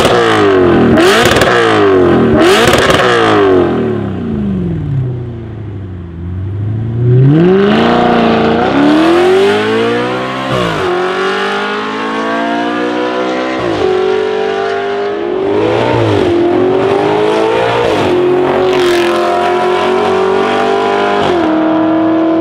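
Audi RS5 B8's 4.2-litre V8 through an Armytrix valve-controlled exhaust. It gives three quick revs while standing, settles back toward idle, then makes a loud full-throttle launch, the note climbing and dropping at several quick upshifts as the car pulls away.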